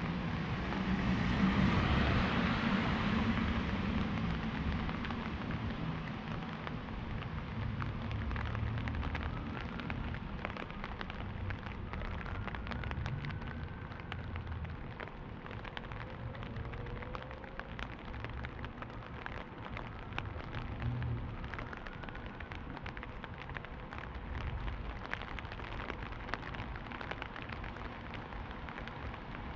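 Steady rain falling, with many sharp individual drop hits through it. The rush of it is louder over the first few seconds, then settles to an even level.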